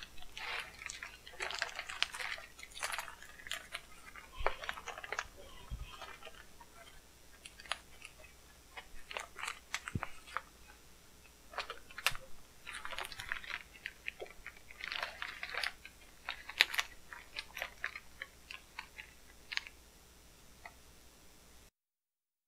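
Plastic packing wrap crinkling and crackling in irregular handfuls as it is pulled off a long parcel. The sound cuts off suddenly near the end.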